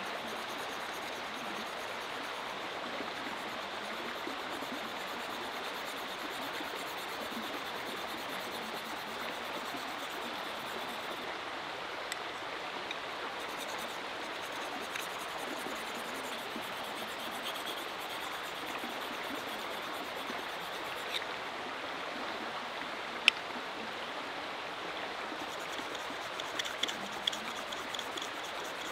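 Steady rushing of a small river. Over it, faint scraping of a knife blade stroked along a hand-held whetstone, with a few sharp clicks; the loudest click comes about 23 seconds in.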